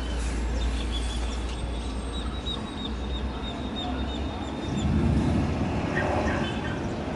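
Gusty wind rumbling on the microphone as a storm front arrives, swelling louder about five seconds in. A bird chitters in a quick run of short high calls over the first couple of seconds.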